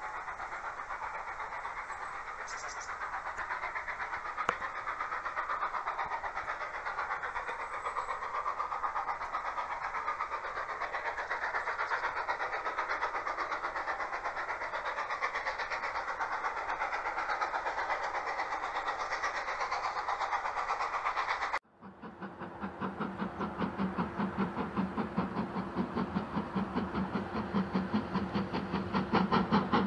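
GWR Manor class 4-6-0 steam locomotive 7828 Odney Manor working hard, its two-cylinder exhaust beating in an even rhythm that grows louder as it approaches. Before that there is a steady rushing noise of a train on the move, which cuts off suddenly about two-thirds of the way through.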